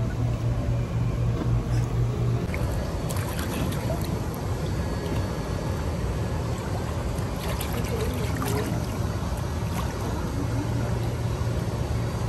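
Pool water splashing and sloshing, with a few sharper splashes, over a steady low rumble.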